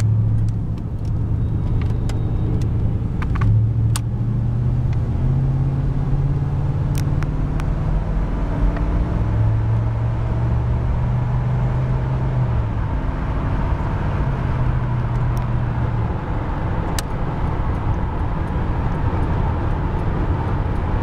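1990 Chevrolet Caprice Classic's 5.0-litre V8, heard from inside the cabin, pulling away and accelerating. Its note climbs and drops back a couple of times as the automatic transmission shifts up, then it settles into a steady cruise with road noise.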